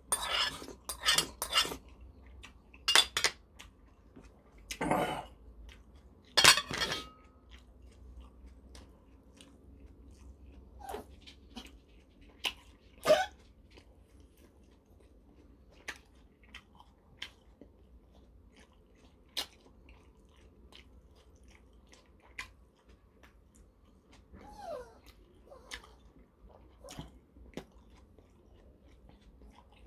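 A person eating close to the microphone: a few loud slurps from a spoon and clinks against the bowl in the first seven seconds, then soft chewing with scattered small mouth clicks.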